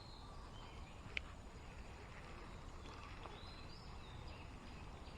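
Quiet outdoor ambience with a few faint, short high bird chirps and a single sharp click about a second in.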